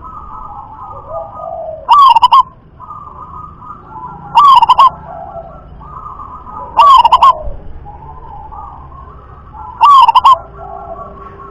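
Zebra dove (local perkutut) cooing. Four loud phrases come about every two and a half seconds, with a softer rolling coo between them.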